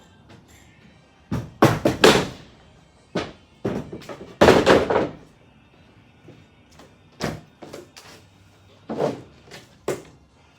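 Irregular thuds, bangs and knocks of things being handled and set down, in a cluster about two seconds in and a heavier one about five seconds in, then single knocks spaced a second or two apart.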